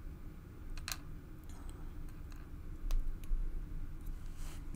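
A few small metallic clicks and ticks of steel tweezers against a lock cylinder and a metal pin tray as pins and springs are picked out, the sharpest about a second in.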